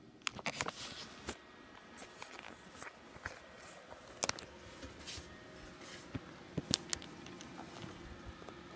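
Old desktop PC making irregular clicks and ticks over a faint steady hum, the weird noises of a computer about 13 years old.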